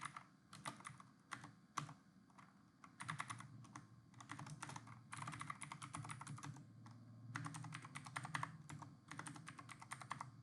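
Faint computer keyboard typing: a few single key clicks at first, then several quick runs of keystrokes about a second long each.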